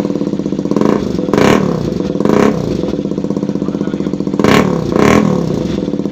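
KTM RC 200's single-cylinder engine idling loud through an aftermarket silencer held by hand on the bend pipe, blipped four times so the revs rise and drop back. The sound is being checked to judge that silencer.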